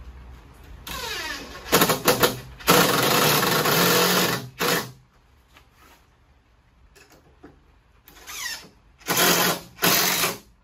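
DeWalt cordless drill driving deck screws into wooden floor-joist blocking, run in several trigger pulls: a cluster of bursts about a second in, a longer run of about a second and a half, then three short bursts near the end.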